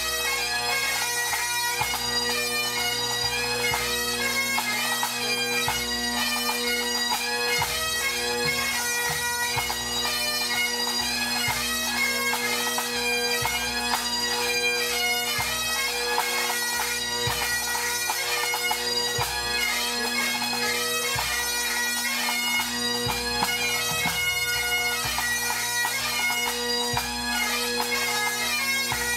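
Full Highland pipe band playing: Great Highland bagpipes sounding a melody over their steady drones, with snare, tenor and bass drums beating along.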